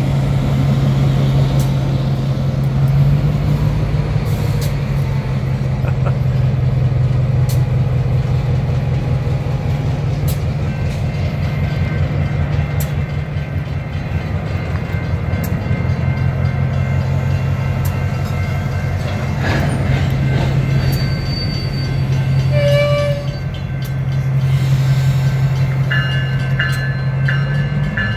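Diesel-electric freight locomotive rolling slowly past, its engine running with a steady low drone, and scattered clicks from the wheels on the rail. Brief higher tones come in near the end.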